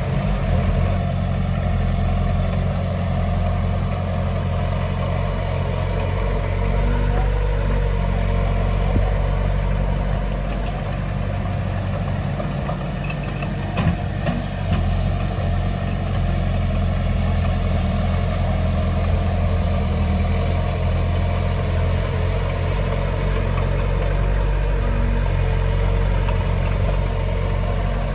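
Heavy diesel engine of earthmoving machinery running steadily, deep and even, with no sharp knocks or clanks.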